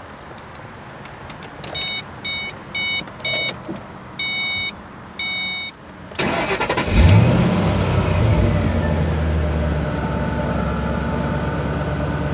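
The car's dashboard warning chime sounds about seven times, then the Saleen S281's supercharged 4.6-litre V8 cranks briefly, catches with a loud rev flare and settles into a steady idle.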